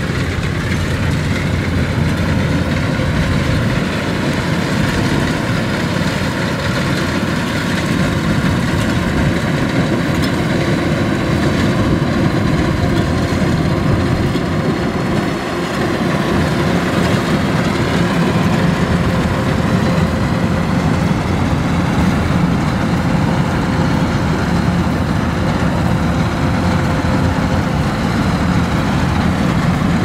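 Kubota DC105X rice combine harvester's diesel engine and machinery running steadily as it cuts through a rice field, with a brief dip in loudness about halfway.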